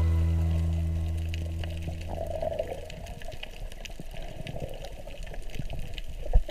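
The last chord of a song fades out over the first two seconds. It gives way to underwater sound picked up by the camera: a rushing, gurgling water noise scattered with sharp crackling clicks, and a low thump near the end.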